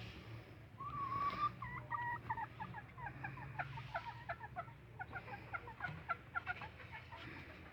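Layer hens cackling and clucking: one longer call about a second in, then a run of rapid short notes, over a faint low hum.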